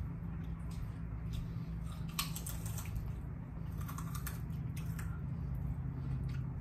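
Crunchy potato-skin snack chips being bitten and chewed, irregular short crunches over a steady low hum.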